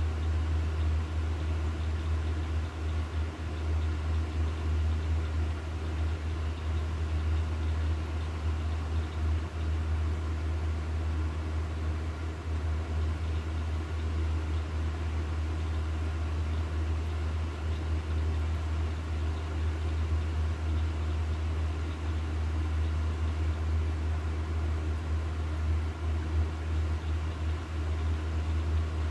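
A steady low hum with a constant hiss over it, unchanging throughout, with no distinct knocks or events.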